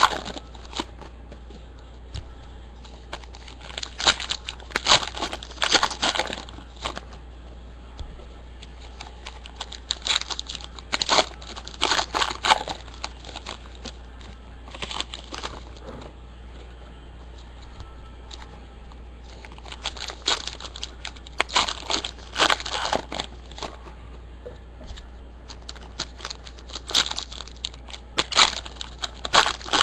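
Crinkling of foil trading-card pack wrappers as the packs are handled and torn open, in irregular bursts of crackly rustling.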